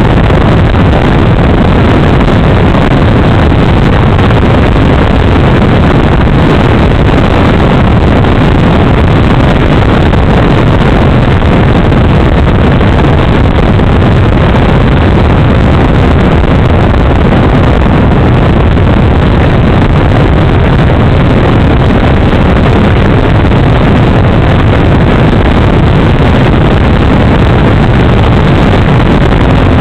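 Propeller and motor of a Super Cub model plane in flight, heard from a camera on the plane, mixed with wind rushing over the microphone. The sound is a loud, even noise.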